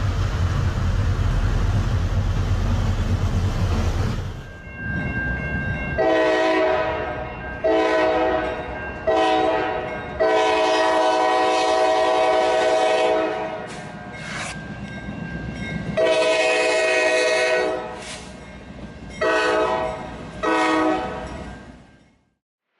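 A heavy low rumble, then a locomotive air horn sounding a chord in the grade-crossing pattern: two long blasts, a short one and a long held blast. After a short pause come more blasts, first a long one, then two short ones near the end.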